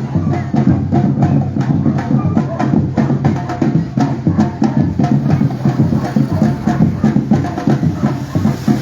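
Batucada street-percussion band drumming a steady, fast rhythm, deep drums under sharper strokes, with many strokes each second.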